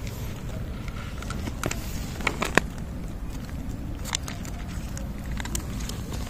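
A cat crunching dry kibble: scattered crisp clicks over a steady low rumble.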